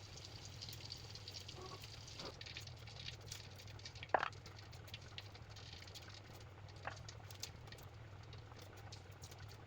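Faint crackling and sizzling of food cooking in a pan over a low steady hum, with a brief sharp sound about four seconds in and a weaker one near seven seconds.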